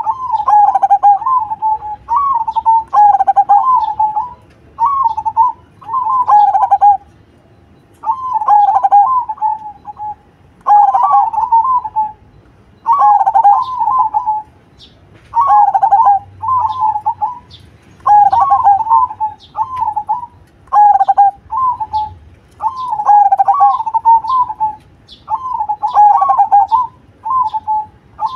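Zebra dove (perkutut) cooing: about a dozen phrases of rapid rolling coos, each a second or two long, with short pauses between them. Faint high-pitched chirps sound behind it, mostly in the second half.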